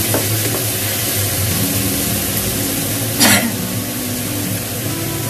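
Mushroom strips and chillies sizzling in a hot wok while a wooden spatula stirs them, with one brief, louder stroke of the spatula against the pan about three seconds in.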